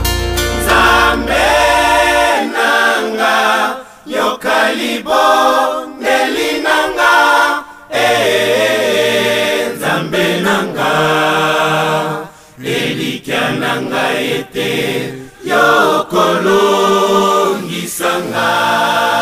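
A choir singing with little or no accompaniment; a deep bass heard at the start drops out about two seconds in.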